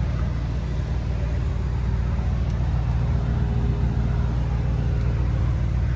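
Mercedes-AMG GLE 63 S twin-turbo V8 idling while parked: a steady low rumble with no revving.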